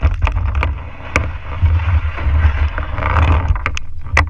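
Kayak being paddled: water splashing and sloshing against the hull, with wind rumbling on the deck-mounted camera's microphone. A few sharp knocks stand out, the loudest near the end.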